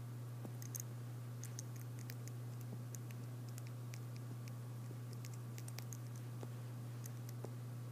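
Scattered light clicks and taps of people writing, over a steady low electrical hum.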